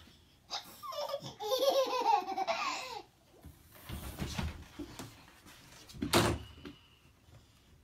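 A baby laughing in a run of high-pitched giggles for a couple of seconds, with a short, sharp sound about six seconds in.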